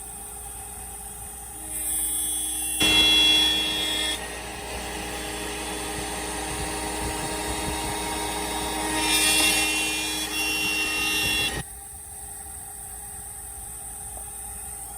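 CNC router cutting a wooden workpiece with an end mill. The spindle whines steadily throughout. A louder cutting noise starts about three seconds in and drops away near twelve seconds, and pitched whining tones come and go around the start and end of the cut.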